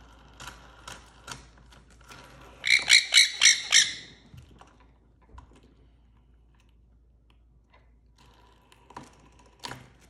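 Nanday conure giving a quick run of about six harsh squawks, a little over a second long, about three seconds in. A few light clicks come before and after.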